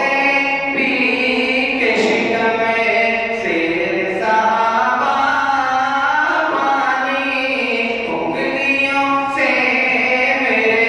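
A man's voice singing an unaccompanied devotional naat in long, held, melismatic phrases, with brief breaths between lines.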